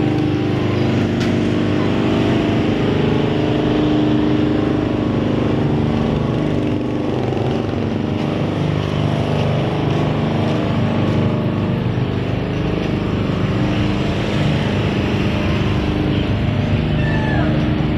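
Engine of the vehicle carrying the camera running steadily while riding through street traffic, with road and traffic noise.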